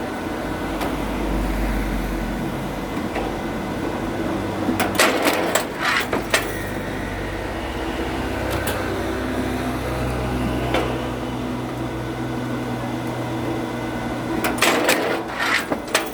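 A motor running steadily with low humming tones that shift in pitch partway through. Clusters of sharp clicks or knocks come about five seconds in and again near the end.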